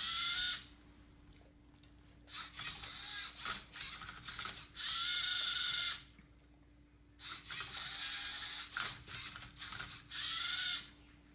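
LEGO Mindstorms EV3 MindCuber robot working a Rubik's Cube: three short whirring motor runs with a whine, about five seconds apart, and clicking and rattling of the cube and plastic mechanism in between as it makes its turns.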